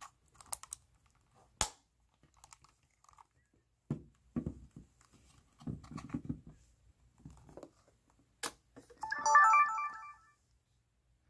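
A Sony Handycam HDR-PJ10 camcorder being handled. A few sharp clicks come as the SD card is pushed into its slot and the cover snaps shut, followed by fingers rubbing on the plastic body. About nine seconds in comes the loudest sound: the camcorder's short electronic power-on melody of stepped beeps.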